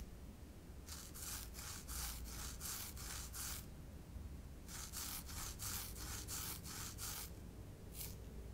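A mashed-potato-coated corn dog rolled back and forth on a ceramic plate, the potato dough rubbing against the plate in quick strokes, about three to four a second. The strokes come in two runs with a pause between them, and one last stroke near the end.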